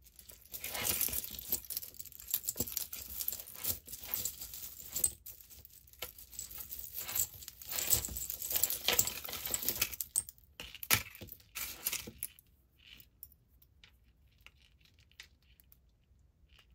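Pieces of costume jewelry (metal chains, pendants and beads) clinking and jangling as they are handled and picked out of a tangled pile. The clatter is busy for about twelve seconds, then falls to a few faint ticks.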